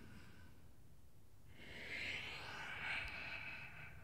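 A man's long, audible yoga exhale, starting about one and a half seconds in and lasting about two seconds, as he rounds his back from cow into cat pose.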